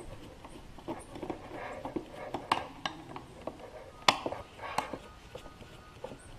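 Screwdriver working out the screws of a plastic air filter housing: scattered sharp clicks and taps of metal tool on screw and plastic, the loudest about four seconds in.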